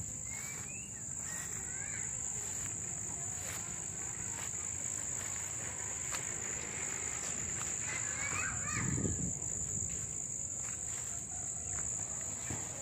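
Insects trilling in a steady, unbroken high-pitched drone, with a few faint rising chirps near the start and again a little past the middle, and a short low rustle about nine seconds in.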